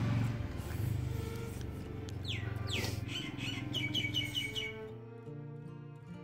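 A bird calling, two quick downward-sliding whistles followed by a rapid run of short chirps, over a low rumble. Music comes in near the end.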